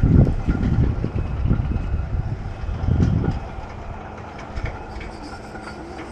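Riding noise on a Kawasaki Eliminator SE motorcycle. Wind buffets the microphone in irregular low gusts, loudest at the start and again about three seconds in, and a steady engine hum continues under it in the second half.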